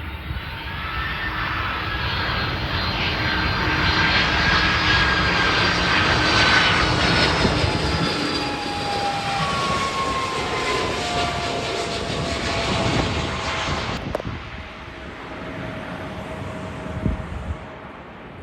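Jet engines of an Airbus Beluga cargo plane passing by, growing louder to a peak about six seconds in and then fading, with whining engine tones that slide down in pitch as it goes past.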